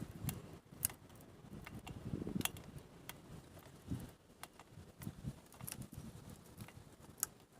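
Scattered light clicks and taps with soft rustling: small metal and plastic parts being handled while a throttle cable is fitted to an earth auger. The sharpest click comes near the end.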